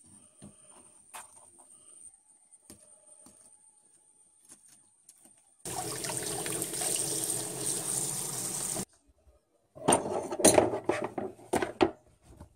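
Faint knife clicks and scrapes on a wooden cutting board as a fish is gutted, then tap water running into a basin in the sink for about three seconds, starting and stopping abruptly. Near the end, a loud burst of rustling and knocks.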